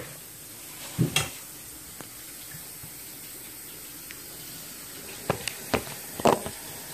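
A steady hiss with a sharp knock about a second in, then a quick run of four knocks and bumps near the end, as the phone and the plastic bowl are handled and set down.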